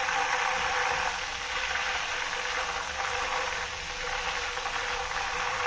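Banana slices deep-frying in hot oil on high flame, a steady sizzle as the water still in the slices boils off.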